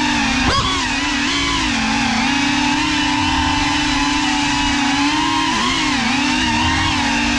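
FPV quadcopter's brushless motors and propellers whining, the pitch shifting up and down with the throttle as it manoeuvres. About half a second in, the pitch drops sharply and climbs back.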